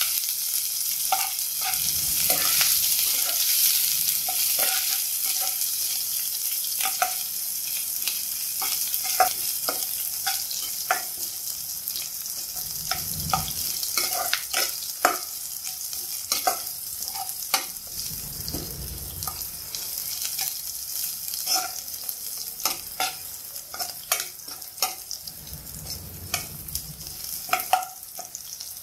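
Garlic, ginger and green chillies frying in ghee, a steady sizzle that slowly fades, while a metal spatula stirs them and clicks and scrapes against the non-stick pan many times.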